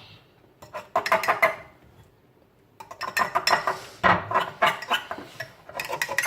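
A utensil clinking and scraping against a mixing bowl while stirring a thick mixture: a short burst about a second in, then steady rapid clinking from about three seconds on.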